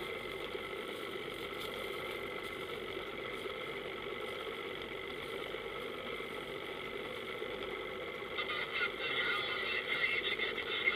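Boat engine running steadily with a constant hum. About eight seconds in, a louder crackly noise joins it.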